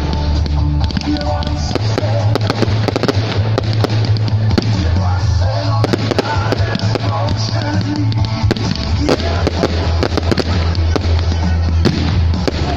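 Fireworks firing in quick succession: a dense run of sharp bangs and crackling pops, with music and a steady deep bass playing underneath.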